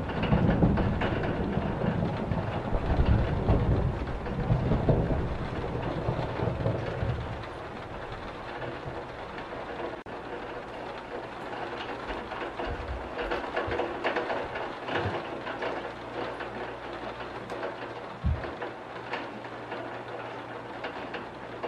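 Steady rain with a low rumble of thunder through the first several seconds that fades out about seven seconds in; after that, rain alone with scattered drips and taps.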